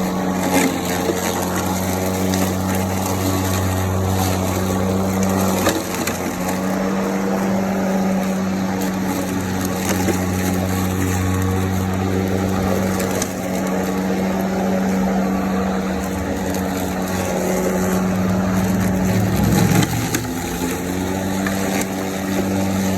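Kobalt 80V battery push mower's electric motor humming steadily as the blade cuts through tall, overgrown grass, with crackling and snapping of stalks thrown out the side discharge. The motor's pitch wavers briefly under load about twenty seconds in; it is running at its normal speed, not kicked up into its high-speed mode.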